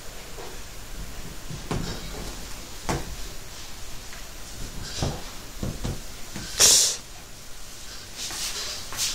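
A cat pawing and scrambling on a fabric sofa after a toy mouse: a few soft thumps and knocks, and a short, loud hiss-like rush about two-thirds of the way in.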